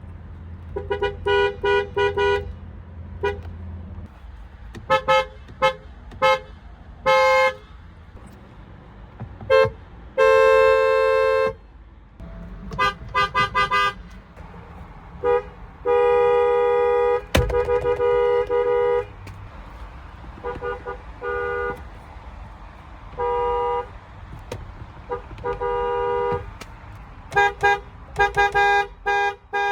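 Car horns honking again and again: quick short toots mixed with longer blasts, the longest lasting about one and a half seconds and about three seconds. A low rumble sits under the first few seconds, and a single sharp click comes partway through.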